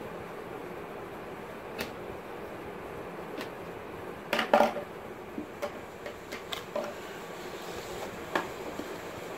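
Cardboard earbud packaging being handled: a short clatter about four and a half seconds in as scissors are set down on the table, then light taps and scrapes of the box as the inner box slides out of its sleeve. Under it all is a steady background hiss.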